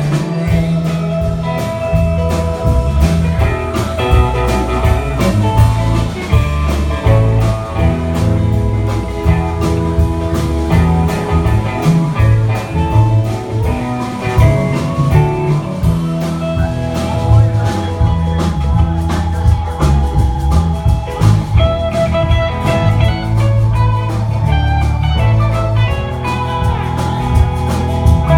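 Band playing an instrumental break: guitar over bass and drum kit, with no singing.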